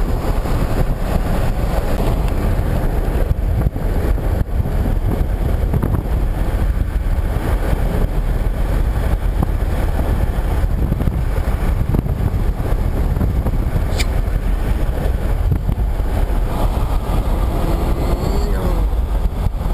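Steady low rumble of a car driving along a highway: engine, tyre and wind noise heard from inside the moving vehicle. A single faint click about fourteen seconds in.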